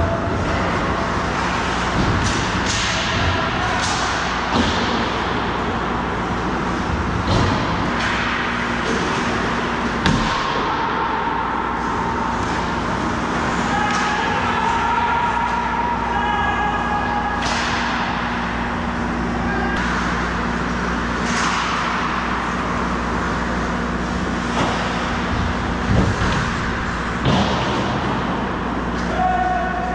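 Ice hockey play: frequent sharp clacks of sticks, puck and boards, with skate blades scraping the ice, over a steady hum in the rink.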